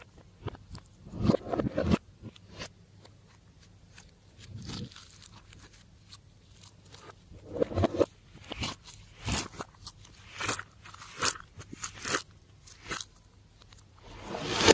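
Slime being squeezed and pressed by hand, giving irregular crackling, crunchy pops. The pops come sparsely at first and then about once or twice a second in the second half.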